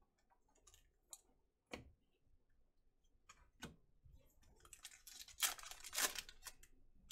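A few light taps of cards being handled, then the shiny wrapper of a Panini Chronicles baseball card pack crinkling and tearing open, loudest about five to six seconds in.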